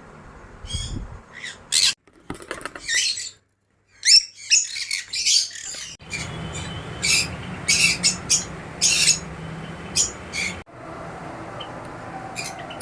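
Caged pet birds chirping and squawking in many short, high calls. The sound cuts out briefly a little after three seconds in.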